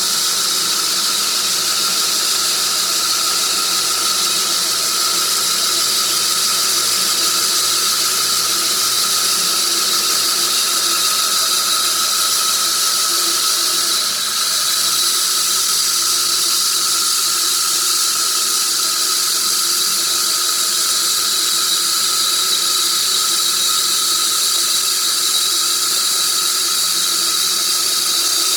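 Sawmill saw cutting through a tree-of-heaven log: a loud, steady high-pitched whine with hiss, dipping briefly about halfway through.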